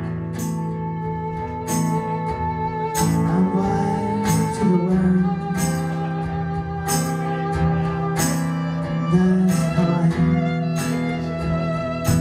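A live band playing: acoustic guitar and a violin over a steady held low note, with a sharp percussive hit a little more than once a second.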